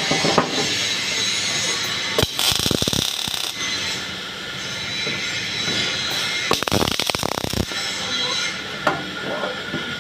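Welding arc crackling and hissing steadily, with two louder stretches of dense crackle, about two seconds in and about seven seconds in.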